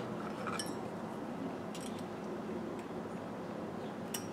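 A few faint, light clicks and clinks of small electrical parts and tools being handled and set down on a paper sheet.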